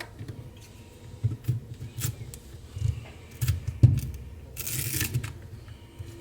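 Light knocks, clicks and dull thuds of small tools and a phone being handled on a repair bench, with a short hiss about four and a half seconds in.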